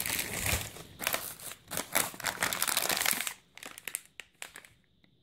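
Packing paper and plastic wrapping crinkling and rustling as hands dig through a cardboard box, dying away to a few faint rustles about three and a half seconds in.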